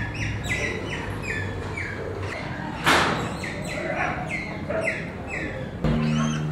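Birds chirping in quick repeated calls, about three a second, with a single loud, sudden noise about three seconds in. Near the end the chirping gives way to a steady low hum.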